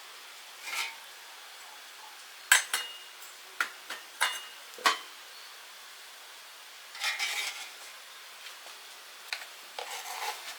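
Metal utensil stirring in a cooking pan: a few short scrapes and about five sharp metallic clinks against the pan, some ringing briefly.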